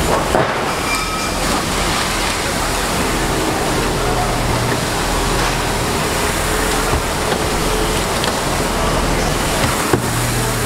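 Steady, loud rushing noise with a low hum underneath, from fire apparatus engines running at the scene of a vehicle fire, with a couple of faint clicks.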